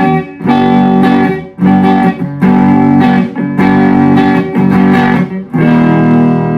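Electric guitar chords on the neck pickup of an Epiphone Les Paul, played through an Orange Baby Terror amp head with its tubby switch on for extra mids and low end. The chords are struck about once a second, and the last one is left to ring near the end.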